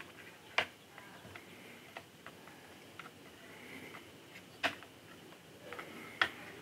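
Light clicks and taps of hard model-kit pieces being handled and fitted against each other, three sharper clicks spread out among fainter ticks.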